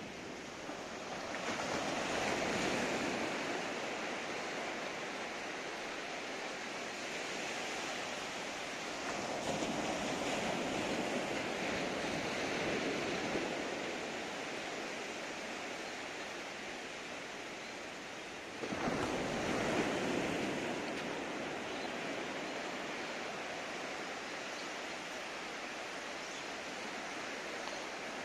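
Small waves breaking and washing up a sandy beach: a continuous surf hiss that swells three times, about two, ten and nineteen seconds in. The last wave breaks suddenly.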